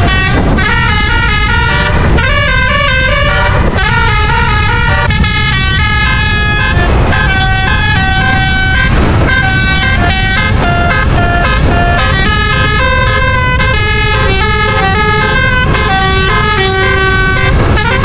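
A coach's telolet musical air horn, a bank of twelve roof-mounted trumpets, plays a tune in quick stepping chords throughout, over a steady low rumble.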